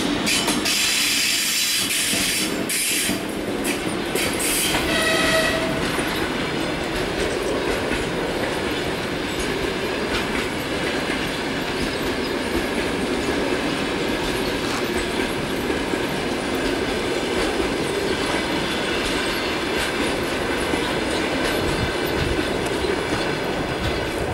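Passenger coaches of a train hauled by a ChS4t electric locomotive rolling past, their wheels clattering over rail joints. A hissing rush in the first few seconds, and a brief high tone about five seconds in.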